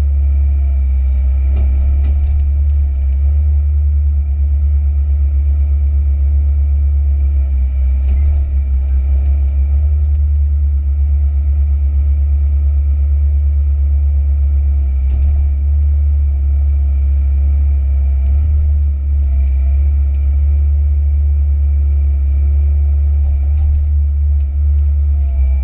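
Komatsu PC138UC excavator's diesel engine and hydraulics running steadily under work, heard from inside the cab: a loud, deep, constant drone with a steady whine above it and an occasional faint knock.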